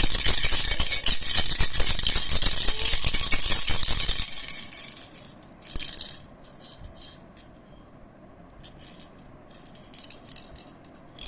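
Three-bell baby rattle (jhunjhuna) shaken steadily, its bells jingling busily for about four seconds. It then falls nearly still, leaving only faint, scattered jingles and one short shake about six seconds in.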